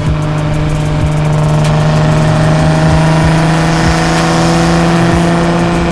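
Nissan R35 GT-R's twin-turbo VR38DETT V6 running through a full-titanium Tomei Expreme Ti exhaust as the car drives along, a loud, steady drone whose pitch creeps slightly upward and then holds.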